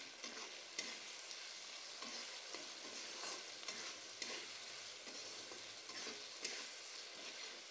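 Chopped tomatoes frying in oil in a metal kadhai with a steady sizzle, stirred and scraped with a flat metal spatula that clicks against the pan every second or so; the tomatoes are being cooked down with salt until soft.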